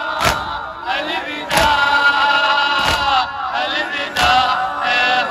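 A crowd of Shia mourners doing matam: men chanting a noha lament together, with a loud unison slap of hands on chests about every 1.3 seconds, four times.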